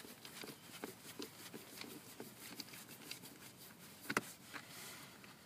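Phillips screwdriver backing a screw out of a Combi Coccoro car seat's plastic shell: faint, irregular small clicks and scrapes as it is turned, with a sharper click about four seconds in.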